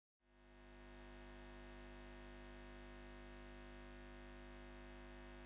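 Faint, steady droning hum of many held tones, fading in about a second after a moment of dead silence and then holding level.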